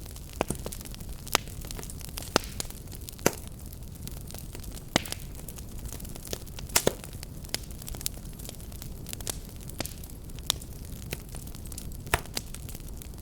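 Fireplace fire crackling, with irregular sharp pops and snaps over a steady low rumble of burning.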